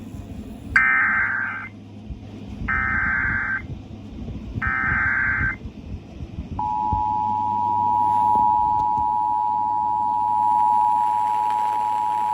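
Emergency Alert System broadcast tones: three one-second bursts of screeching SAME header data, the digital code that announces the alert, then, about six and a half seconds in, the steady two-tone EAS attention signal (853 and 960 Hz) begins. A low hum runs underneath.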